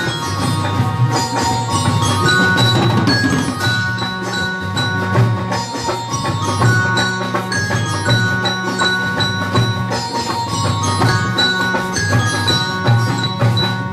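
A student instrumental ensemble playing a tune: sitars and a Casio keyboard with bell-like mallet notes, over a steady drum beat.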